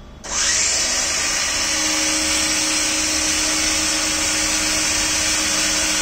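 The robot's electric grass-cutter motor switches on about a quarter second in and runs steadily at speed, a loud high whir. A steady hum settles in after a second or two.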